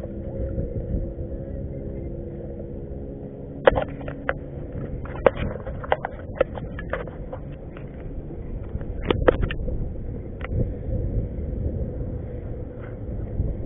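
Low wind rumble on the microphone over open water, with a steady motor hum in the first few seconds. Then a scatter of sharp knocks and clicks, a quick cluster about nine seconds in.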